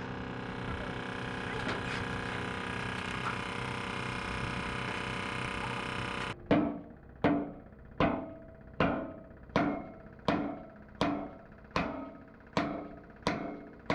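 A steady mechanical hum, then, about six seconds in, about ten evenly spaced hammer blows on steel, roughly one every three-quarters of a second, each ringing briefly as it dies away.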